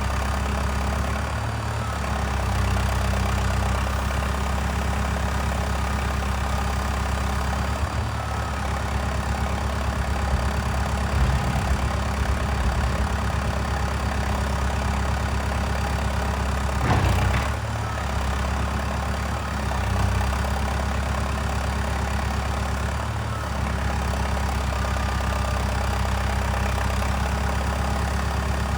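Valtra 815 backhoe loader's diesel engine running steadily, its note shifting a few times as the load changes. A single sharp clunk comes about 17 seconds in.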